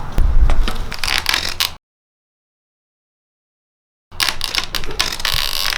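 Clicking and rattling of hand tools and parts being handled, with a dead gap of about two seconds in the middle where the sound cuts out completely.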